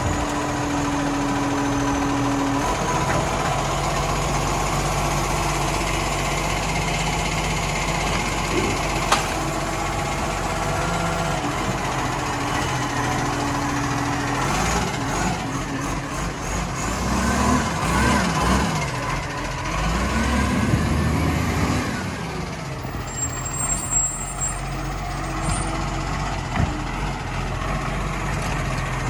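Side-loading garbage truck's diesel engine running while its hydraulic arm tips a wheelie bin into the hopper and lowers it back to the kerb, with a steady hydraulic hum. A little past the middle the engine pitch rises and falls several times as the arm works.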